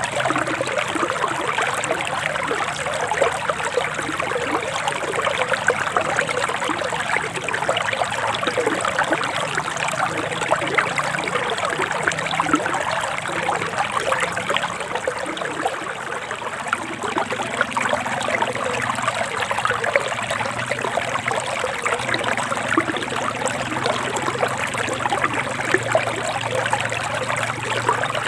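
A forest stream trickling and splashing over rocks, a steady flow of fine bubbling water.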